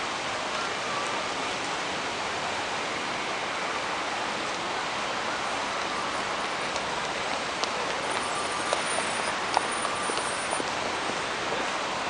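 Steady hiss and rumble of street traffic, with cars passing by and a few faint clicks in the second half.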